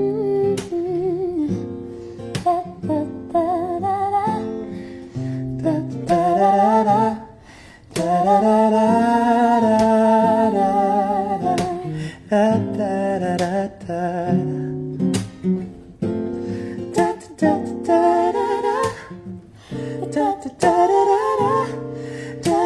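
Background music: an acoustic guitar song with a wordless vocal melody.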